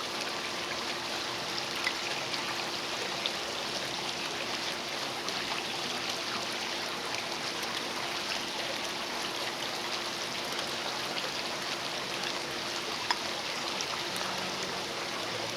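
Steady fizzing and sizzling hiss with faint scattered crackles, from cola on hot pork ribs in a smoker.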